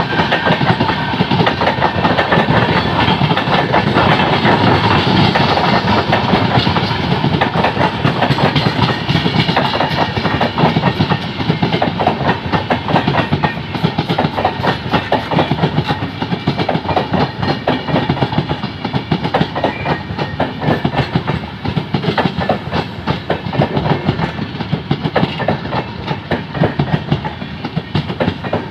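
Coaches of a Duranto express train passing close by at speed: a dense, rapid clickety-clack of wheels over rail joints over a steady rushing rumble. It eases somewhat in the second half and drops away near the end as the last coaches go by.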